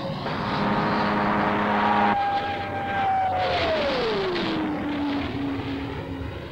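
Jet aircraft flying past: a loud rush of jet noise with an engine whine that falls steadily in pitch about halfway through as it goes by. The sound changes abruptly about two seconds in, like a cut to a new pass.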